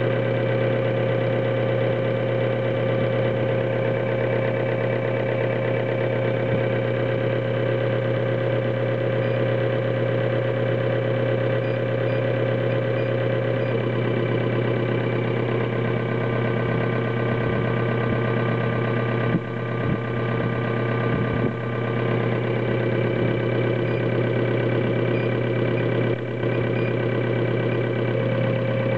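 Common rail injector test bench running a test: its drive motor and high-pressure pump give a steady hum with several steady tones while the injector is fired under rail pressure. One of the higher tones drops out about halfway through, and the level dips briefly a few times near the end.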